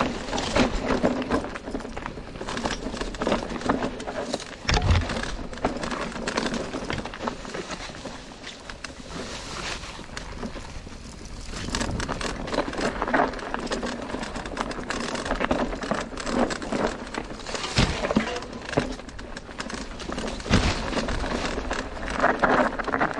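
Merida eONE-Sixty electric mountain bike riding downhill over dirt and rocky singletrack: tyres crunching over dirt and stones, with steady rattling and clicking from the bike and several hard knocks over bumps.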